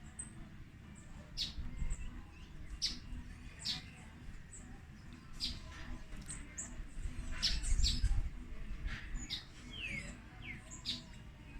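Birds chirping: short, high calls scattered irregularly, one of them a quick falling note, over a low rumble.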